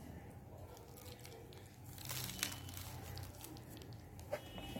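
Faint handling sounds as salt is pressed into slit boiled lemons: a soft crinkling rustle about two seconds in and a couple of light clicks, over a faint low hum.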